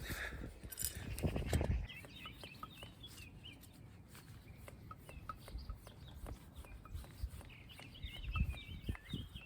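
Small birds chirping and twittering in short, quick phrases, with thuds and rubbing close by that are loudest in the first two seconds.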